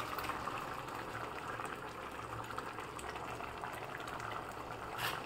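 Chicken curry bubbling steadily as it simmers in an aluminium pressure-cooker pot on a gas stove. A brief louder noise comes near the end.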